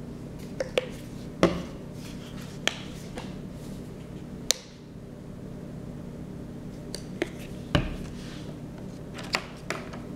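Paintbrush working on paper: about ten short, sharp brush strokes and taps at irregular intervals, the loudest about one and a half seconds in and near eight seconds in, over a steady low hum.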